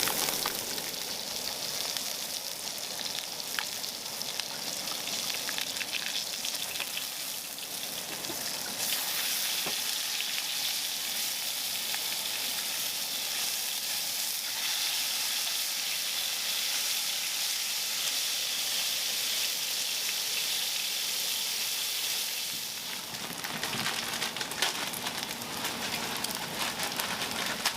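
Pork belly sizzling in a hot pan, a steady frying hiss that grows a little louder about a third of the way in and eases near the end.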